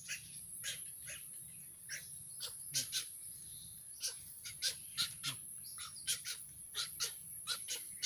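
Young egret feeding from a plate: an irregular run of short, sharp clicking sounds, about two or three a second.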